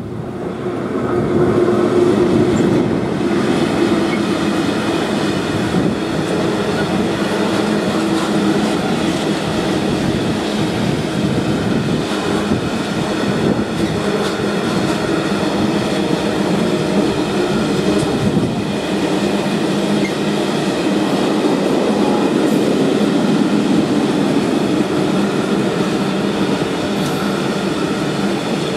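Freight train running past at close range, with an electric locomotive followed by a long string of open box wagons, their wheels rolling on the rails. The noise grows over the first two seconds as the locomotive comes level, then holds steady as the wagons keep passing.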